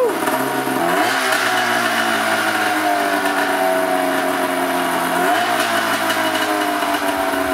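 800cc two-stroke engine running on its first start after an engine swap. The revs pick up briefly about a second in and again about five seconds in, and otherwise the pitch sinks slowly as it settles.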